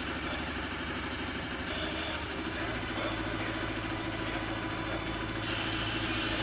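Engine of a large vehicle running at low revs, its low note changing about two and a half seconds in. A hiss comes in near the end.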